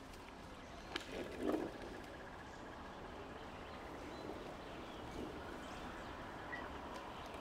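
Quiet rural outdoor ambience, with a sharp knock about a second in followed by a short low animal sound.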